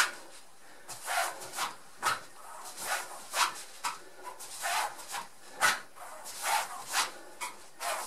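Socked feet scuffing and sliding on an exercise mat during solo judo foot sweeps: a quick, uneven run of short swishes and scrapes, about two a second.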